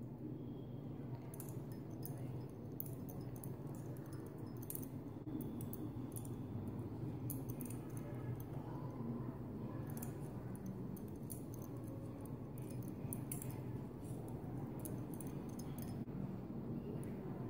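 Knitting needles clicking lightly against each other as stitches are worked, a scatter of short irregular ticks over a steady low hum.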